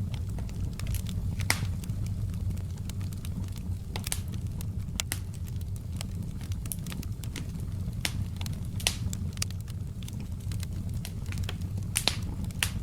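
Wood fire burning in a fireplace, a steady low rumble of flame with irregular sharp crackles and pops, a few louder snaps about a second and a half in and near the end.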